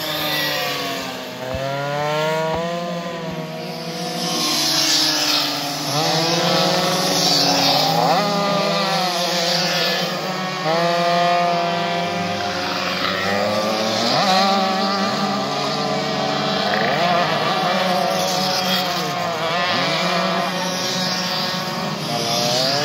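Racing two-stroke mopeds lapping one after another, their high-revving engines rising and falling in pitch as each one passes and backs off for the roundabout, several often heard at once.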